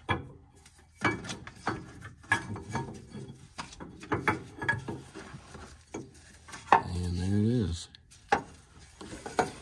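Scattered metallic clicks, knocks and scraping as an oil filter housing is worked loose by hand and pulled out from under a Ford 4.6 V8. A short voice sound comes about seven seconds in.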